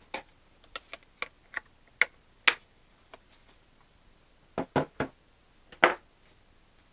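Scattered sharp clicks and knocks of a small plastic RC transmitter being handled: its battery cover clicked shut, the unit turned over and set down on a table. The louder knocks come in a cluster around five to six seconds in.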